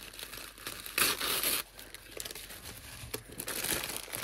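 Tissue paper wrapping being torn open, with one loud rip lasting about half a second about a second in, then rustling and crinkling of paper and plastic packaging.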